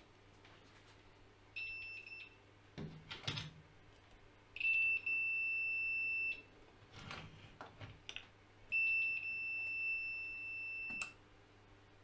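Digital clamp meter's continuity buzzer beeping as its probes touch the limit switch's contacts: a steady high beep that signals a closed circuit through the switch. It comes as a short, stuttering beep near the start, then two longer beeps of about two seconds each, with a few light knocks of the probes between them.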